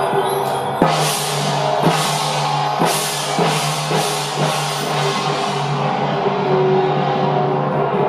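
Temple procession percussion: drum strikes and cymbal crashes about once a second, over a steady ringing tone, dying down in the second half.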